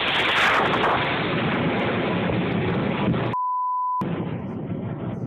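Thunder from a close lightning strike, a loud rumbling crash with rain noise under it. About three seconds in, a steady beep replaces everything else for about half a second, then the rumble and rain go on more quietly.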